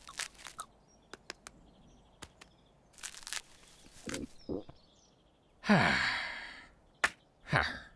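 Cartoon sound effects: scattered light clicks and knocks, then a long breathy sigh-like sound, falling in pitch, about six seconds in, and a shorter falling sound near the end.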